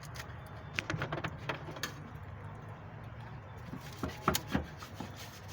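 Hand tools clinking and knocking on metal engine parts. There is a quick run of sharp clicks about a second in and a few louder knocks around four seconds in, over a steady low hum.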